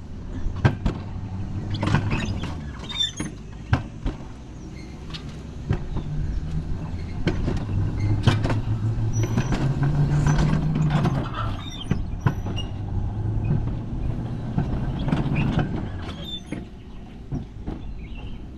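Alpine coaster cart running down its rail track: a continuous low rumble from the wheels that rises and falls in pitch with speed, with frequent clicks and knocks from the track.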